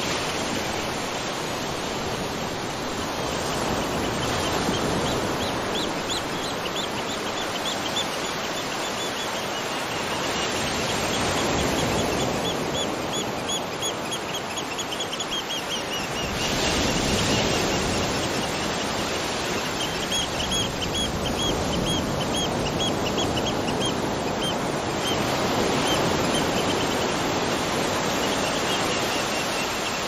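Steady rushing water. Over it come runs of short, high chirps, several a second, from a calling animal; they stop and start again a few times.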